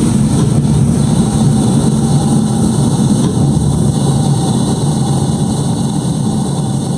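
Rocket engine roar: a loud, steady deep rumble that slowly gets quieter over the last couple of seconds.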